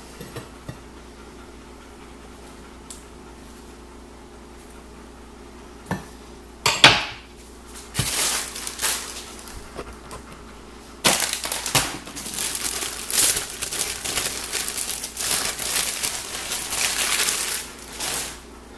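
A few small knife clicks, then a sharp clatter about seven seconds in as the table knife is set down among dishes. After that a plastic deli-ham package crinkles and rustles almost continuously as it is opened and the ham slices are pulled out.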